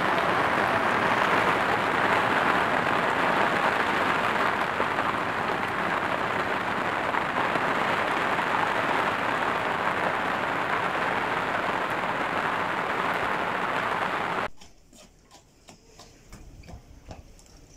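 Torrential rain falling on a moored yacht and the marina around it: a dense, steady hiss. About 14.5 s in it cuts off abruptly, leaving a much quieter stretch with faint, scattered light taps.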